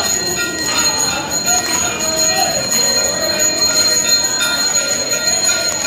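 Temple bells ringing continuously through the aarti, a steady metallic ringing, with a crowd's voices wavering underneath.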